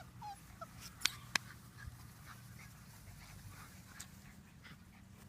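Five-week-old Labrador puppies whimpering and squeaking softly in short, scattered yips. Two sharp clicks come about a second in, over a low steady hum.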